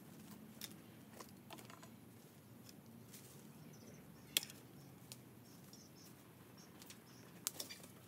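Scattered sharp snaps and crackles of dry twigs and leaves, with one louder snap a little past the middle and a quick cluster of snaps near the end.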